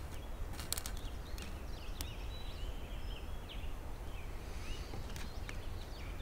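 Small birds chirping: a run of short, sliding high notes through the middle, over a steady low outdoor rumble. A few sharp clicks near the start, as food is set on a small metal stove grate.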